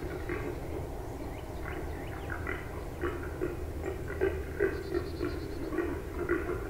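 Wild hogs grunting and squealing in a fast, uneven string of short calls.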